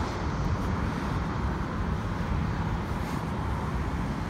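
Steady road-traffic noise, a low rumble of passing cars.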